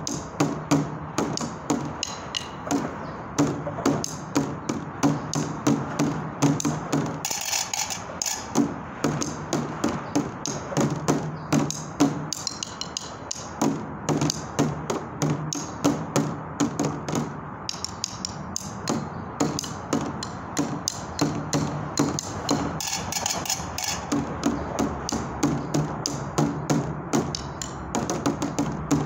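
Improvised percussion: a wooden stick beating a fast, steady rhythm of several strikes a second on found objects such as rocks and a plastic container, some hits giving a low hollow tone. A short hissy passage breaks in about seven seconds in and again near twenty-three seconds.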